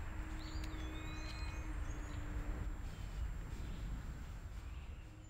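Outdoor ambience with a steady low rumble, and a faint bird call gliding down in pitch about a second in.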